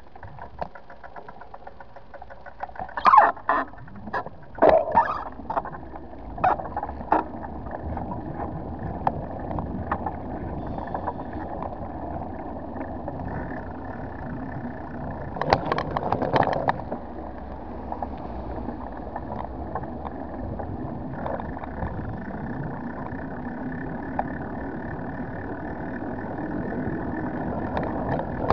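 Steady rolling and wind noise of a slow ride over paving, broken by clusters of sharp rattling knocks from bumps about three to seven seconds in and again around sixteen seconds.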